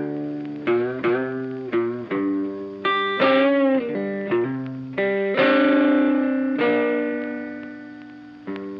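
Background music: a guitar playing a run of single plucked notes with effects, the last long note ringing out and fading before a new note near the end.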